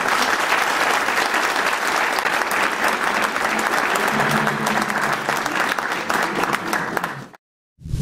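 Audience applauding after a poetry reading, a dense patter of many hands clapping that cuts off suddenly near the end.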